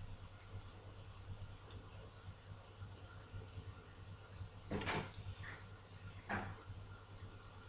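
A cooking utensil knocks twice against the frying pan, about a second and a half apart. Under the knocks are faint scattered ticks and a steady low hum.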